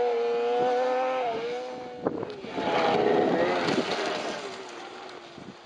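Snowmobile engine running hard at high revs, its note holding steady and then dipping. A louder rush of engine and churned snow follows as it passes close, then the sound fades away.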